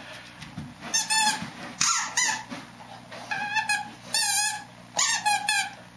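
Squeaky dog toy squeaking in about five quick bursts of rapid squeaks as a Greater Swiss Mountain Dog chomps on it.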